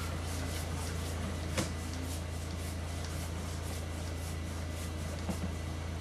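Sewer inspection camera rig running as its push cable is fed down the pipe: a steady low electrical hum with faint, regular ticking several times a second, and one sharper click about one and a half seconds in.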